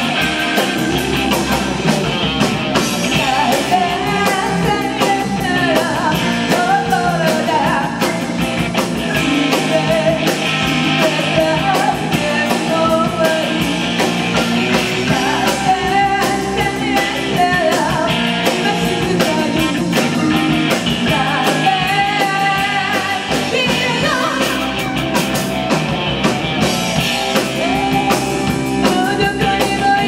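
Live rock band playing: a woman sings over electric guitar, bass, keyboard and drums.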